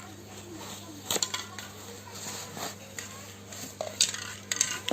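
A few sharp clicks and clinks of hard objects being handled, loudest about a second in and near the end, over a faint steady hum.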